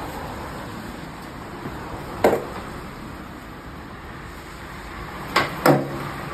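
Skateboard clacking against concrete during ollie attempts: one sharp clack about two seconds in, then two in quick succession near the end, the last ringing briefly.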